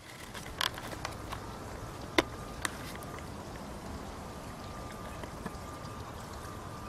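Steady outdoor background noise with a few short, sharp clicks in the first three seconds, the loudest about two seconds in.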